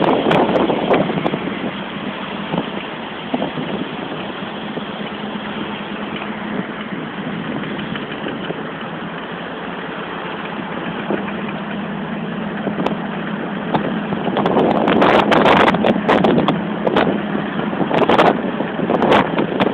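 Car engine running at low speed while driving through floodwater: a steady low hum under a constant hiss of noise. In the last few seconds, louder irregular rushes of noise come and go.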